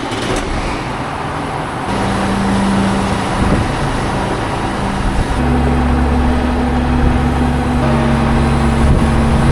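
An engine running steadily and speeding up in steps: its tone appears about two seconds in and rises a notch twice, a few seconds apart.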